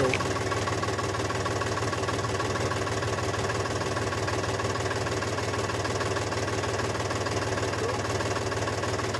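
Mini tractor's engine running steadily and evenly as the tractor is driven slowly.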